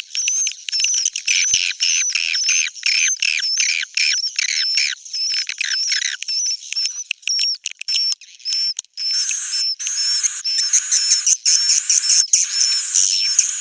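Swiftlet roosting ('inap') lure sound: a recording of swiftlet twittering played back to draw swiftlets into a bird house to roost and nest. It is a rapid stream of high-pitched chirps and trills, which about two-thirds of the way in becomes denser bursts repeating about twice a second.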